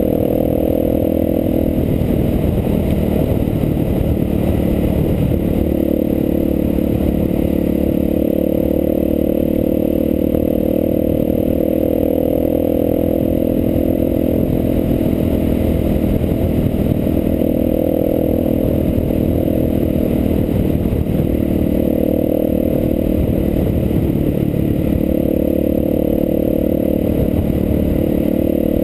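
Enduro dirt bike engine running at steady speed, its pitch rising and dipping slightly a few times, over a constant low rumble.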